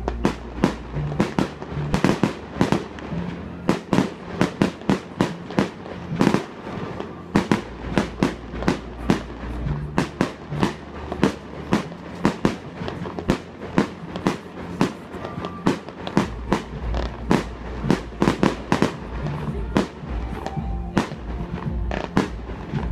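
Fireworks display: shells bursting overhead in a rapid, irregular series of bangs and crackles, roughly two a second.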